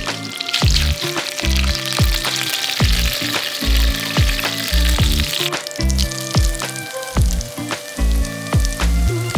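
Hot oil sizzling in a frying pan around a fried chicken breast, cutting off suddenly about halfway through. Background music with a steady beat and deep bass notes runs throughout and is the loudest thing.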